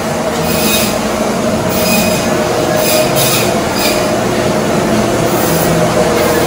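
Steady machine drone with a few held tones and a few faint clicks.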